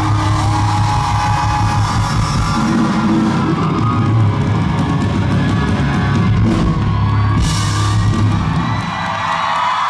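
Live rock band playing the end of a song, loud, with screams from the audience. The band stops about nine seconds in, leaving the crowd's cheering.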